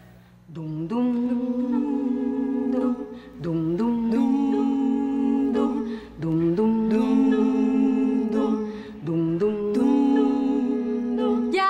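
Female vocal quartet singing a cappella in close harmony, holding chords without words in four phrases of about three seconds each, each phrase stepping up in pitch at its start.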